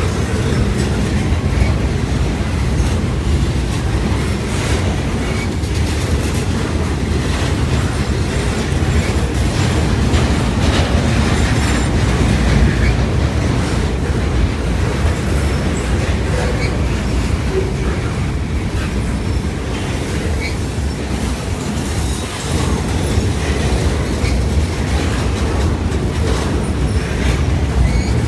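A Norfolk Southern freight train's open-top freight cars rolling steadily past at close range. There is a loud, even low rumble from the wheels on the rails, with frequent wheel clicks.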